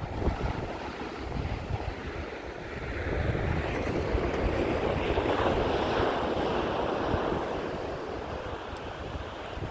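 Ocean surf: a wave breaks and washes in, swelling about three seconds in and fading away by about eight seconds, with wind buffeting the microphone throughout.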